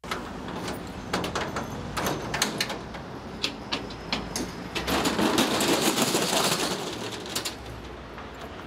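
Metal clicks of a lock being worked on a steel roll-down security shutter, then the corrugated shutter rattling for a couple of seconds as it rolls up.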